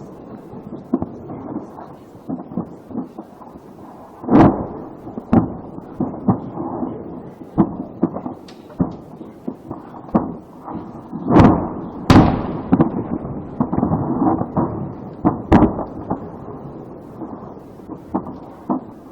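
Burning ammunition depot detonating: a rapid series of explosions and sharp cracks as stored munitions go off. Heavy blasts come about four seconds in, twice around eleven to twelve seconds in, and again near sixteen seconds.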